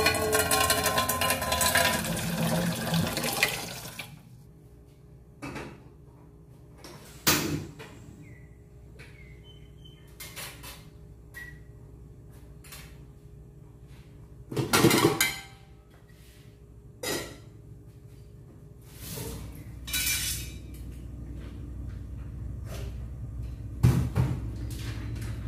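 Tap water running into a stainless steel saucepan in a steel sink, stopping about four seconds in. After that come scattered clanks of pots and dishes, over a low steady hum that grows in the later part.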